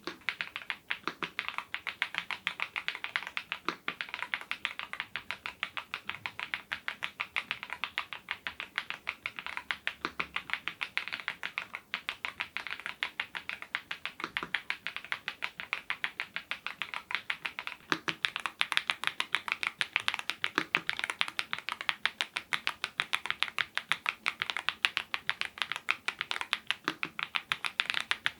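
Continuous fast typing on a YUNZII IF99 full-size mechanical keyboard with lubed Gateron Zero switches: a dense, even run of light key clicks, with a deeper key stroke every few seconds.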